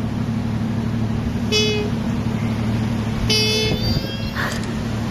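Koala bellowing: a deep, steady, rumbling growl, with two short higher-pitched calls about one and a half and three and a half seconds in.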